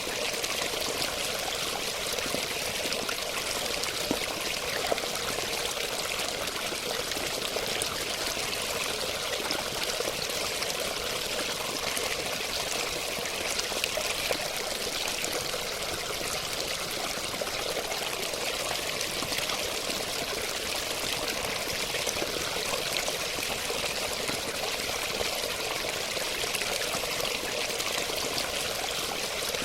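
Running water flowing steadily, an even, continuous splashing rush with no change.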